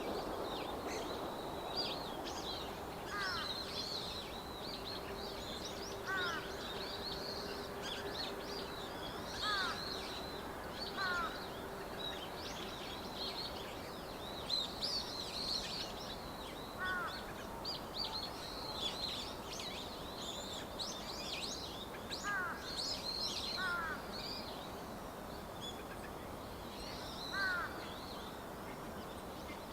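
Dusky thrush calling among other birds: dense high chirps throughout, with a short falling call, often doubled, repeated about eight times.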